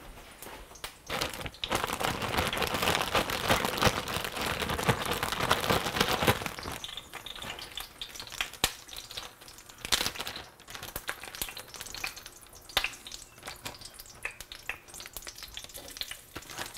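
Hot oil sizzling and crackling in a cast-iron skillet, loudest for the first several seconds, with the rustle of a plastic zip-top bag as pieces of turtle meat are shaken in flour.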